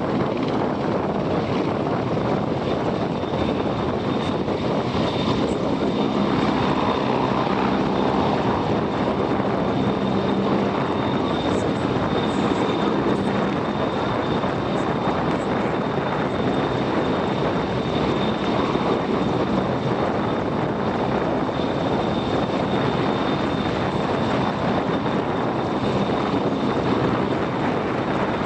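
Royal Navy AgustaWestland Merlin helicopter hovering low: the steady noise of its three turboshaft engines and five-bladed main rotor, with a thin, steady high turbine whine over it.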